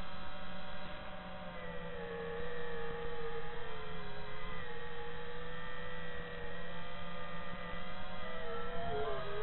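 FPV quadcopter's brushless motors whining as picked up by its onboard camera, the pitch gliding up and down with the throttle and dipping then rising again near the end, over a steady low electrical hum.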